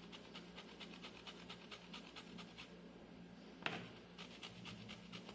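Lemon rind being grated for zest: quick, even scraping strokes, about six a second, with one sharper tap about two-thirds of the way through.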